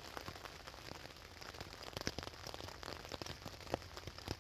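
Rain falling on a tent, heard from inside: a steady faint hiss with scattered sharp taps of drops striking the fabric.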